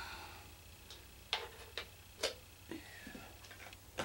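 A few sharp clicks and light knocks, about six in four seconds, as a small refractor telescope's tube is handled and turned over in the hands.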